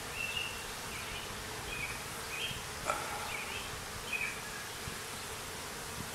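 Honey bees buzzing in a steady hum around an open hive during a frame inspection, with a few short high chirps over it and a single light click about halfway through.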